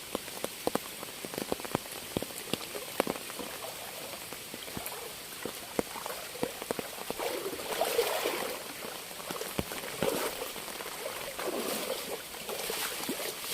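Rain falling on the flooded field, with scattered drops ticking irregularly over a steady hiss.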